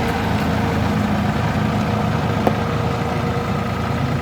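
Engine of a heavy construction lifting machine running steadily as it lifts a load of wood, with a single short click about two and a half seconds in.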